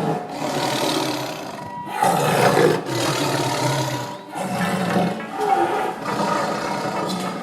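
A lion roaring: three long, rough roars in a row, each lasting about two seconds with a short break between them.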